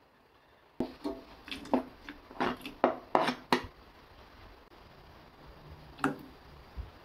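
Kitchenware being handled: a quick run of about eight clinks and knocks, some ringing briefly, then a single clink a few seconds later.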